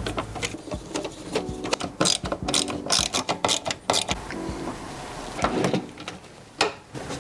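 Xiaomi ratchet screwdriver clicking in short, irregular runs as screws are driven, with occasional knocks of metal parts being handled.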